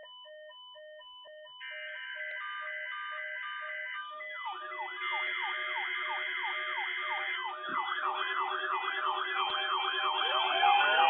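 Electronic siren and alarm tones stacking up and growing louder. Pulsed beeps at several pitches are joined about a second and a half in by a denser layer of tones. A few seconds in come quickly repeating rising-and-falling siren sweeps and a low buzz, with more overlapping sweeps piling on near the end.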